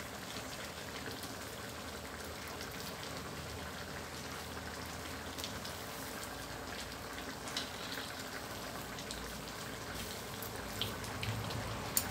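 Chicken coconut-milk curry simmering in a steel wok over a gas burner: a steady bubbling hiss with a few scattered light clicks.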